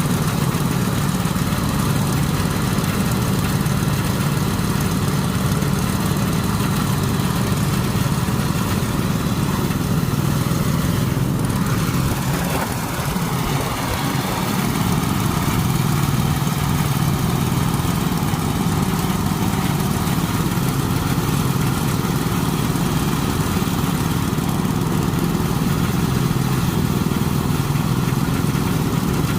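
A small engine of the rice-harvesting machinery running steadily, with a brief drop in level about twelve seconds in.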